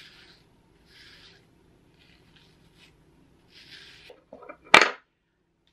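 Hairbrush strokes through gel-coated coily hair, a soft bristly scrape about once a second. Near the end come a few small clicks, then one sharp, loud click.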